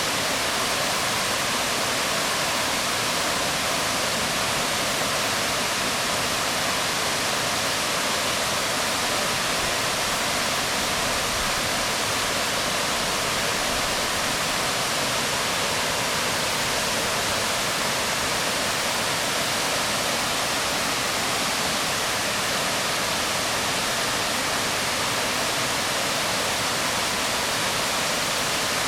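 Waterfall pouring onto rocks: a steady, even rush of falling water with no breaks.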